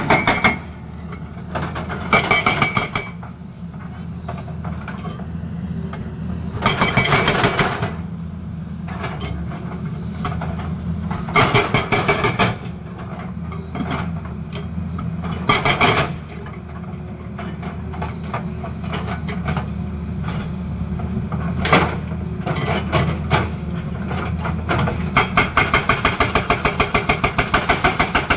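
Hydraulic rock breaker on a Tata Hitachi excavator hammering a rock face in bursts of rapid blows, over the steady hum of the excavator's diesel engine. Near the end the breaker runs without a break, at about four or five blows a second.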